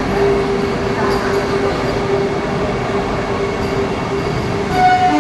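Vande Bharat Express electric trainset rolling past the platform, a steady rumble with a constant hum, and a brief higher tone near the end.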